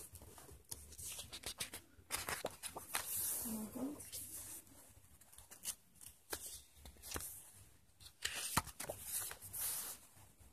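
Pages of a paper sticker book being turned and handled, with light paper rustles and flicks at irregular intervals.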